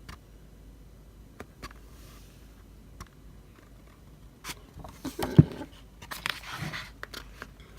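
Pages of a photo book being turned by hand: a few faint ticks, then two short paper rustles about two-thirds of the way through.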